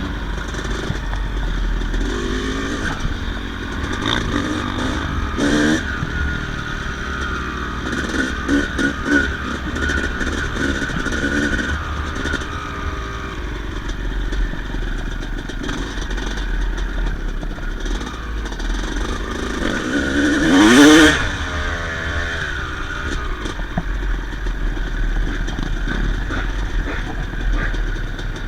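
Yamaha YZ250 single-cylinder two-stroke dirt-bike engine running, with a few short throttle blips and one sharp rising rev about 21 seconds in.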